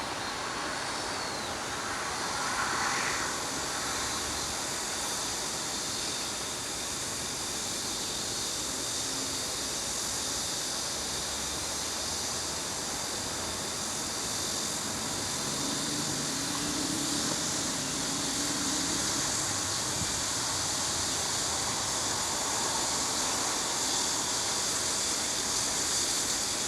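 Typhoon wind blowing strongly and steadily through trees, with a continuous rustle of leaves.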